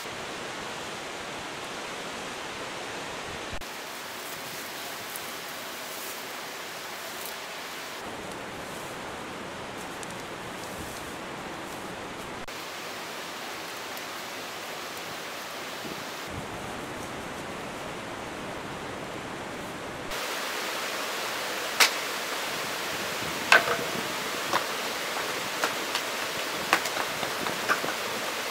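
Steady rush of a rocky mountain stream, a little louder in the last third, with a handful of sharp clicks and snaps over it near the end.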